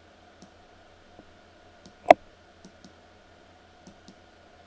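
Computer mouse clicking: a scatter of light clicks and one much louder click a little past two seconds in, over a faint low hum.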